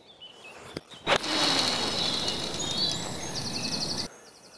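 A golf iron strikes the ball about a second in, followed by a loud rushing whir for about three seconds as fishing line pays out from the reel behind the tethered ball; it cuts off suddenly.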